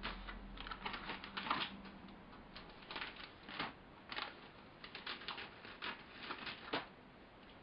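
Plastic model kit sprues in clear plastic bags being handled and lifted out of the kit box: irregular light clicks and crinkling of the bags.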